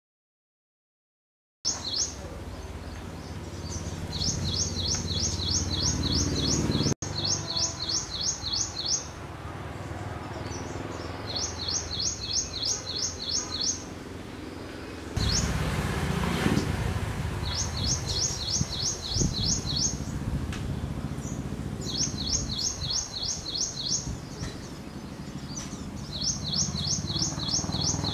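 Ashy prinia singing: a phrase of about eight quick, high, sharp notes, repeated every few seconds, over a low background rumble.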